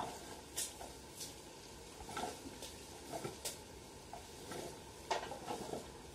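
Dried areca nuts clattering and rolling as a long-handled rake drags them across a cement drying floor: irregular scrapes and knocks, busiest about five seconds in.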